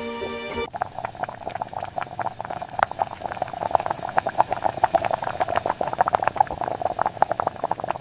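A pot simmering on the stove, bubbling with a dense, irregular patter of small pops. Soft music cuts off suddenly under a second in, just before the bubbling starts.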